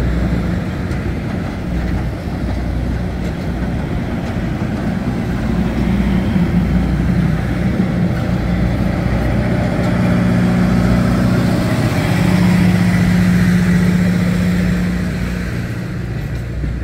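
Passenger rail cars rolling slowly past: a steady rumble of wheels on the rails, with a low steady hum that grows stronger in the second half.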